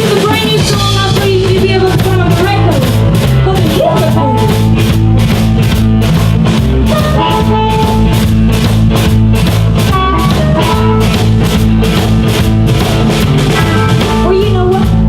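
Live blues-rock band playing an up-tempo boogie, with a drum kit keeping a steady beat of about four hits a second under electric guitar.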